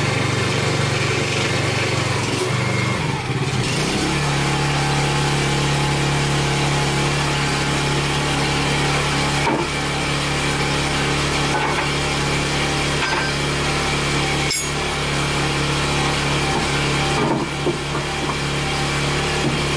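The small petrol engine of a 30-ton hydraulic log splitter running steadily; its tone changes about four seconds in. A few sharp knocks come through later on.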